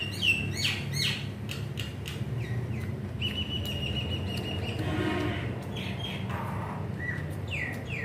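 Pet myna and budgerigar calling to each other: repeated short falling chirps, with one long held whistle about three seconds in.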